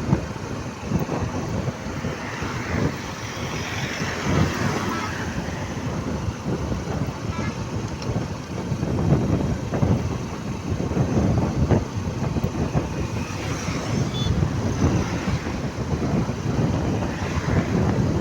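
Wind buffeting the microphone over the running noise of vehicles on a road, a gusty low rumble that rises and falls irregularly.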